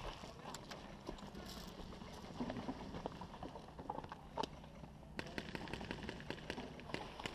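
Quiet, irregular footsteps on dirt and gravel, with light clicks and knocks of gear and a rifle.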